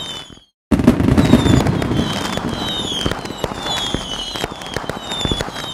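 Fireworks: a dense run of sharp crackling pops with a high falling whistle repeating several times. The sound cuts out briefly just under a second in, then resumes.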